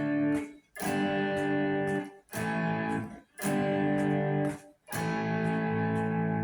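Electric guitar, a Stratocaster-type played through a fuzz box and a Fender solid-state amp, sounding five held chords one after another, each ringing about a second before being cut short by a brief gap.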